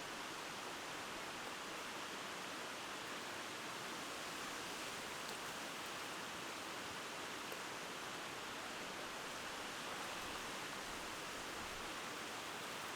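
Steady rushing noise of strong wind in the mountains, even in level throughout, with no gusts and no buffeting on the microphone.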